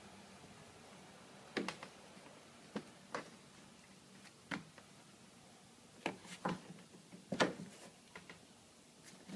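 Scattered light knocks and clicks, about eight in all and a second or so apart, the loudest near the end: handling noise as the flexible shower inlay is positioned over the adhesive on the shower base.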